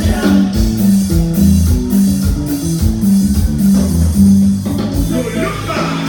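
Band music with a bass guitar line and guitar over a steady drum beat, with no singing.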